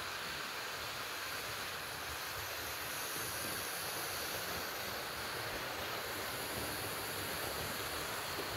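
A model train running on track: a small model steam tank locomotive hauling coaches gives a steady running noise with no change in pace.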